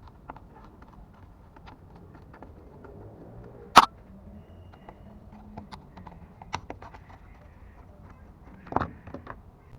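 Scattered light clicks and knocks, with one sharp knock about four seconds in and a duller thump near the end.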